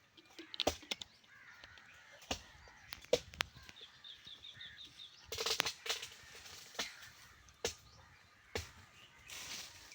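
Birds calling, with a quick run of about eight short high chirps about four seconds in, over scattered sharp clicks and knocks.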